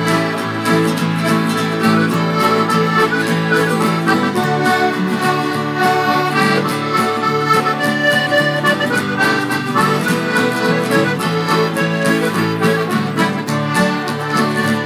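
Instrumental break in a traditional folk song: a button accordion plays the melody over acoustic guitars strumming a steady beat.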